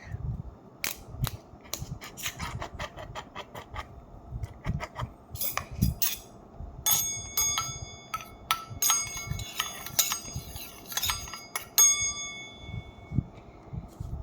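A spoon stirring and clinking against a bowl as a slime mixture is mixed: many quick sharp clinks, and in the second half several harder strikes that ring on briefly like a bell.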